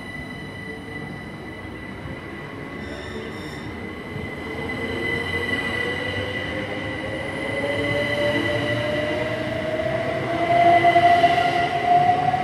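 GWR Class 387 Electrostar electric multiple unit pulling away, its traction motor whine rising steadily in pitch as it gathers speed, over a steady high-pitched whine. It grows louder towards the end, with wheel and rail noise.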